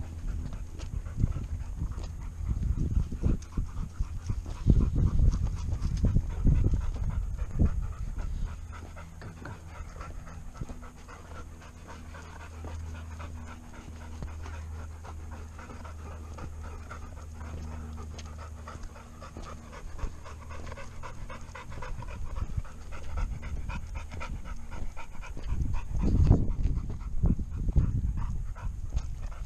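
A dog panting steadily close to the microphone, with heavy low rumbles of wind and handling on the mic, strongest about 3 to 8 seconds in and again near the end.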